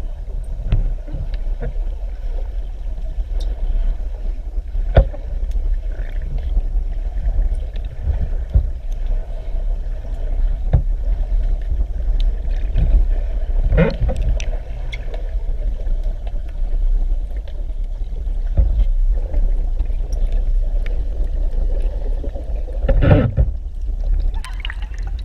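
Electric welding on an aluminium air-conditioner duct: a steady, loud hum and rumble from the welding, with scattered sharp crackles and clicks.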